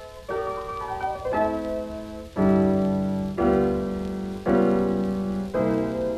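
Background piano music: slow held chords, a new chord struck about once a second, louder from about two and a half seconds in.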